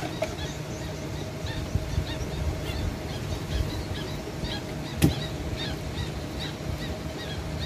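Birds chirping in short repeated calls over a steady low hum, with one sharp knock about five seconds in.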